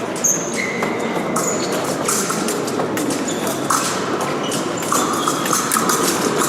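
Épée fencers moving on the piste: quick footsteps and taps with sharp clicks and brief squeaks, over the steady noise of a large fencing hall.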